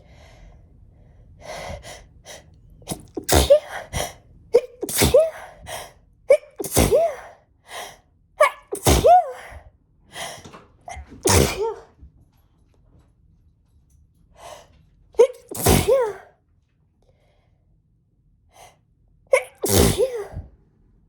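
A woman sneezing in a fit brought on by an itchy nose: about seven hard sneezes, each with a pitched catch of breath just before it. Five come in quick succession, then after a pause two more.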